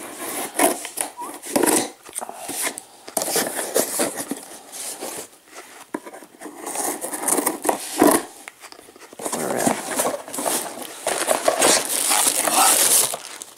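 Scissors cutting through the tape and cardboard of a shipping box, with irregular scraping, snipping and rustling of the cardboard flaps. Near the end, a plastic mailer bag crinkles inside the box.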